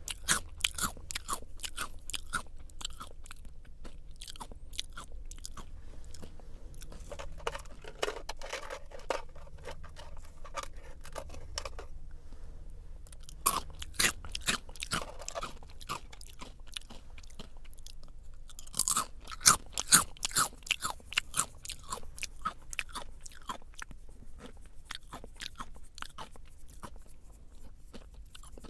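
Crunchy Jagarico potato snack sticks being bitten and chewed: a continuous run of dry, crackling crunches, louder around the middle and again about two-thirds of the way through.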